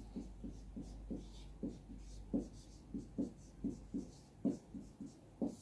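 Faint soft tapping, about three taps a second, with light scratchy sounds between.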